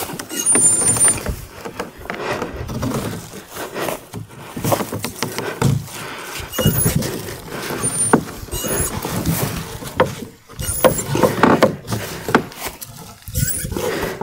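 A ten-metre wooden plank boat being rolled over by hand, its hull giving irregular knocks, scrapes and creaks, with a few short high squeaks.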